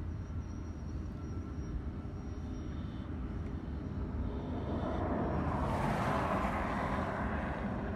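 Freight train passing: a steady low rumble from the wheels and cars on the rail. A louder rushing noise swells about five seconds in and eases near the end.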